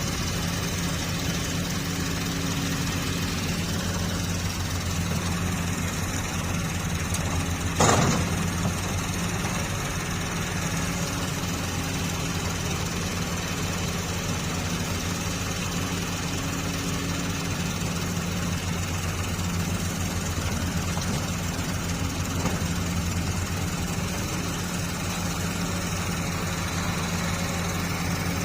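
Doosan 140 excavator's diesel engine running steadily at idle, with one sharp metallic knock about eight seconds in.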